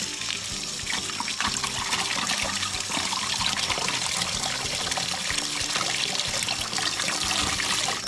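Water from a hose running steadily over live loaches in a plastic basket and splashing down into a bucket, a constant rush and trickle, with background music underneath.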